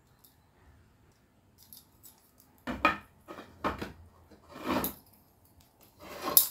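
Handling clatter of a compact gas camping stove and its hose-connected gas canister being moved and set on a wooden table: metal clinks and rattles from the stove's legs, valve and canister. Four short clatters come about a second apart, starting about two and a half seconds in; the last is the loudest.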